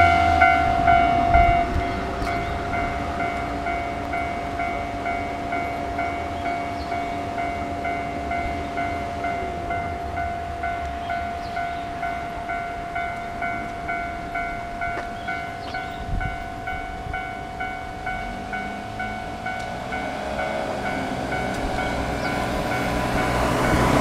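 Japanese railway level-crossing warning bell ringing in a steady, even rhythm while the crossing stays closed. A passing train's rumble dies away about a second and a half in, and another train's sound swells toward the end.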